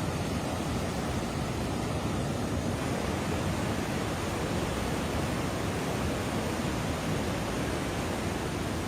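Fast-flowing floodwater rushing: a steady, unbroken noise with no letup.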